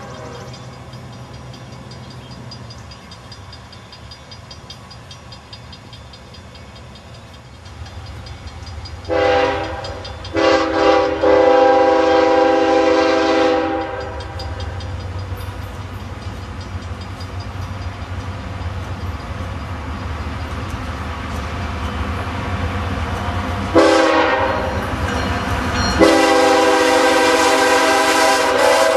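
Air horn of a Canadian National GE Evolution Series diesel locomotive sounding its grade-crossing signal: several blasts with a long one about ten seconds in, then a short blast and a long held one near the end, each a chord of several tones. Under it, the steady low rumble of the approaching freight train.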